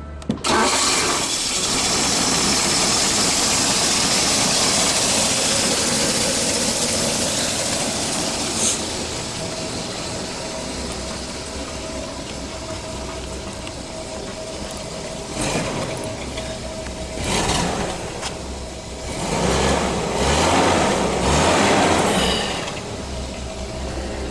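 1980 Toyota FJ43 Land Cruiser's straight-six petrol engine running, loudest over the first several seconds. It is then blipped about four times in the second half, with short rises in revs.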